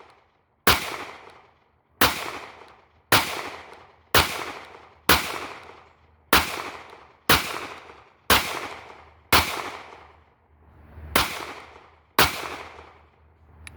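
Kel-Tec PMR-30 .22 Magnum pistol fired eleven times, single shots about a second apart, each crack followed by an echo that dies away. There is a longer pause of about two seconds before the last two shots.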